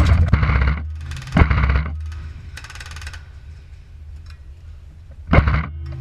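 Several short bursts of rapid airsoft gunfire, with a steady low rumble underneath.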